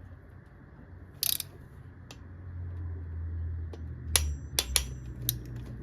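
Torque wrench and socket working a cylinder head bolt during the 40 Nm re-torque pass: scattered sharp metallic clicks, with a short rattle about a second in and a cluster of clicks in the last two seconds, over a low steady hum.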